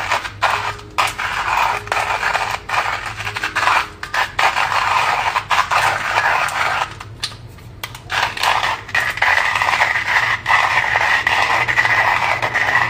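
Manual hand-crank coffee grinder grinding coffee beans: a continuous gritty crunching and scraping as the crank turns, with brief breaks, the longest about seven seconds in.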